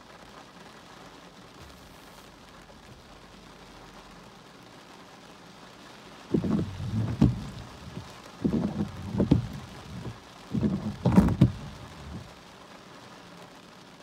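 Rain falling steadily on the car. From about six seconds in, three loud low gusts of wind buffet the microphone about two seconds apart, with sharp clicks among them.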